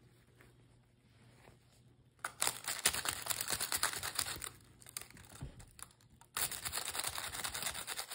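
Parchment baking paper crinkling and rustling around a baked cheesecake as it is shaken. The crackling comes in two spells: one starting about two seconds in and lasting about three seconds, the other from about six and a half seconds in.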